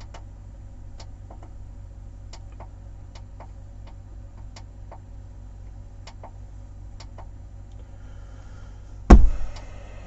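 Light clicks at uneven spacing, about two a second, over a steady low hum, then a single loud thump about nine seconds in.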